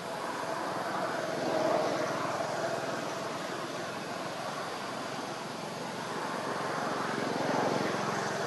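Steady outdoor background noise that swells a little about two seconds in and again near the end.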